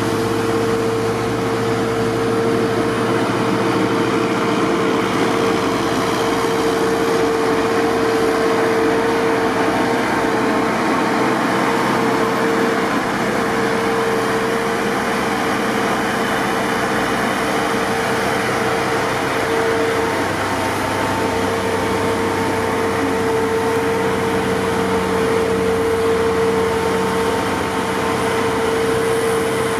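Heavy snow-clearing machinery running steadily: loader engines and a loader-mounted snowblower giving a constant mechanical drone with a steady hum, unchanging throughout.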